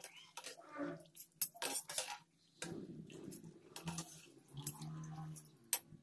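Metal skimmer and wire-mesh strainer clinking and scraping against the wok as freshly fried aloo bhujia is lifted out of the hot oil, with several sharp clicks.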